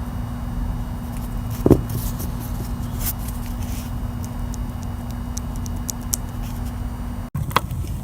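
Chrysler 3.6L Pentastar V6 engine running at idle: a steady hum with scattered light, sharp ticks. The sound cuts off abruptly near the end and resumes without the steady hum.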